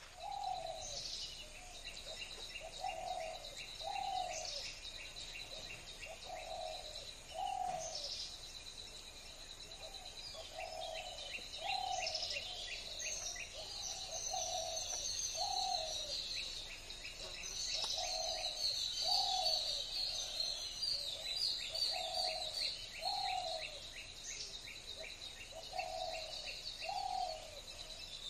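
Birds calling: one bird repeats a low two-note call every few seconds, while other birds chirp and trill steadily above it.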